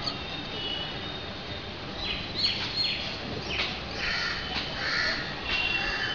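Bird calls repeated several times, starting about two seconds in.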